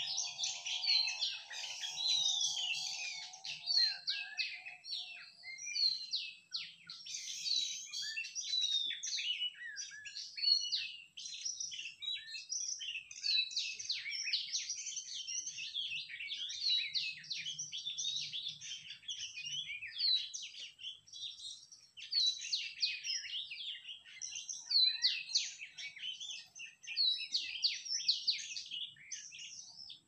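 Oriental magpie-robin (kacer) song: a continuous, unbroken stream of varied whistles and chirps. A fainter low buzzing trill runs under it for the first few seconds.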